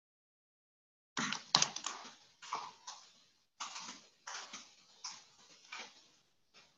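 Computer keyboard typing heard over a video-call audio feed: short bursts of key clicks starting about a second in, separated by brief pauses.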